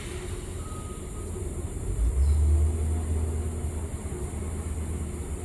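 A low, steady rumble like a vehicle engine, louder for about a second around two seconds in, with one high steady beep like a reversing alarm about half a second in.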